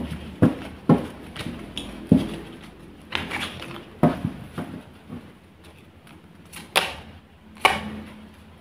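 Tarot cards being handled and drawn from the deck: an irregular series of sharp taps and card flicks, the two loudest near the end as a card is brought out.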